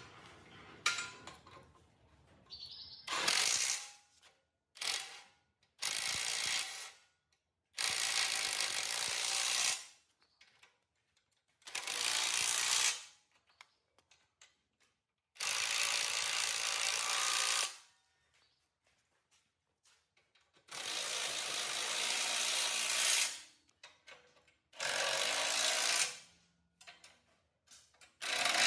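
A workshop tool run in about eight short bursts of hissing, even noise, each lasting one to two and a half seconds, with silent pauses between them.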